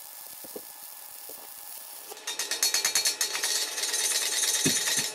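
Stick (arc) welder's arc giving a steady hiss for about two seconds, then stopping. The fresh weld is then cleaned of slag with a hand tool: loud, rapid metal-on-metal scraping and tapping, several strokes a second.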